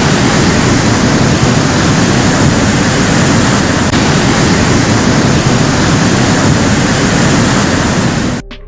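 Loud, steady rushing of a swollen, muddy river in flood, a dense noise of fast-moving water, cutting off suddenly near the end.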